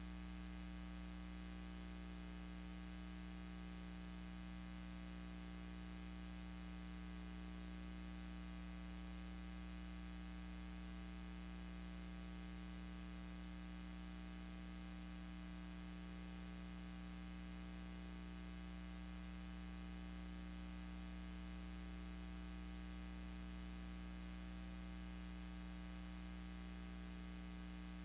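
Steady electrical mains hum with its overtones and a constant hiss, unchanging throughout: the noise floor of the transfer of silent film footage, with no other sound.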